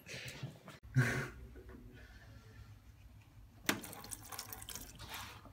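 Water running from a bottled-water cooler's cold tap with no cup under it, splashing onto the drip tray. There is a sharp click a little past the middle.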